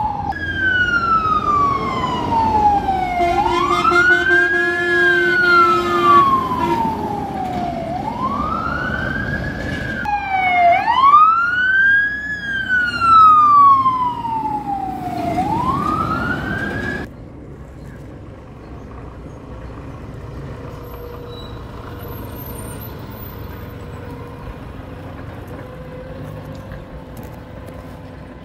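Fire engine's electronic siren wailing in repeated long falling sweeps and rising arcs, with a steady horn tone for about two seconds near the start. A little past halfway the siren cuts off suddenly, leaving quieter steady street background.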